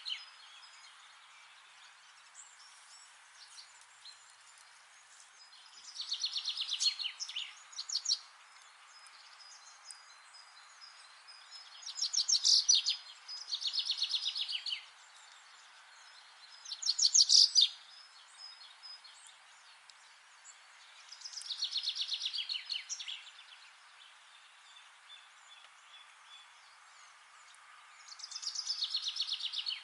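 A songbird singing: short, fast trilling phrases, each a second or two long, repeated every few seconds over a steady faint hiss.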